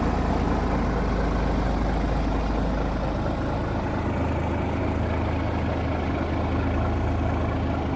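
A heavy vehicle engine idling steadily, its low note shifting slightly about three seconds in.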